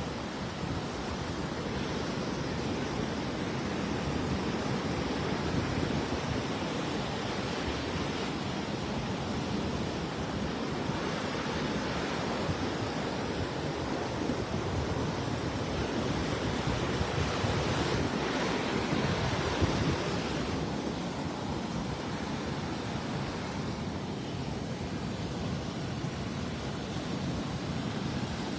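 Gulf surf breaking on the beach: a steady wash of waves that swells a little louder in the middle.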